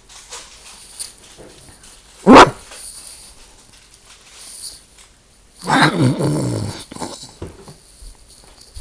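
A person imitating an animal with her voice: one short, loud call a little over two seconds in, then a longer, rough, growly call lasting about a second and a half.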